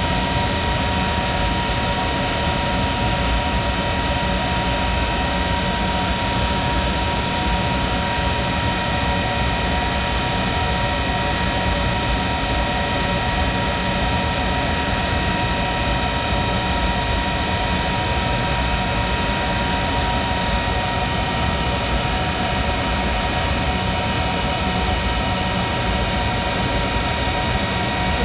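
Monarch 10EE lathe running steadily, a constant mechanical hum with a steady high whine over it.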